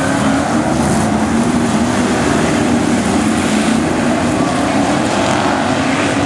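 Engines of a pack of dirt-track stock cars running together around the oval, their pitch drifting up and down as cars pass.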